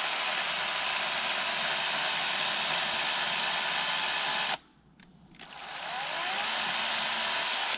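Cordless 40-volt battery chainsaw running and cutting wood. It stops suddenly about four and a half seconds in. About a second later it spins back up and runs again.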